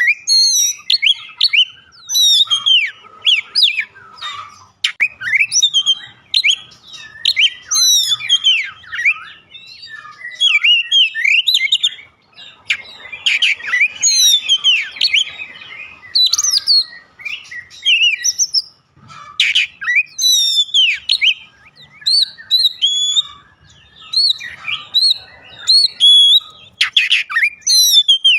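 Oriental magpie-robin (kacer) in full song: a fast, varied run of clear whistles and sweeping rising and falling notes, in phrases a second or two long separated by short pauses.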